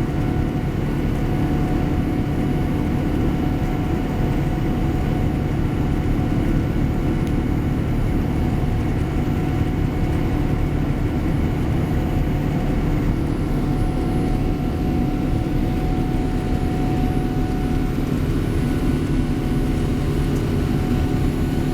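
Steady cabin noise inside a Boeing 787 Dreamliner climbing after takeoff: a constant rumble of engine and airflow with a few faint steady tones above it.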